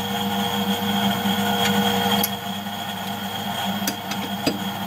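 A lathe's three-jaw chuck being tightened with its chuck key on a small brass part, giving a few light metallic clicks and knocks over a steady mechanical hum.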